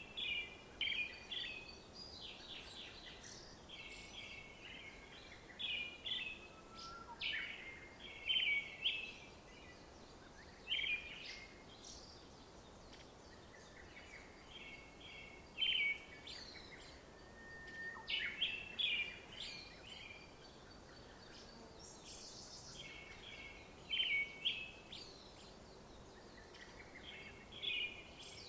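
Several birds singing and chirping over a faint steady background of outdoor ambience, with short trills and quick down-slurred notes every second or two.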